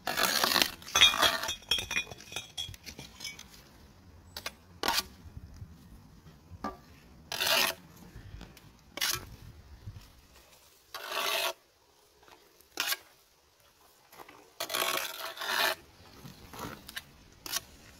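Steel brick trowel scraping wet mortar across brickwork in short strokes, with a few sharp knocks and clinks of the trowel on brick between them.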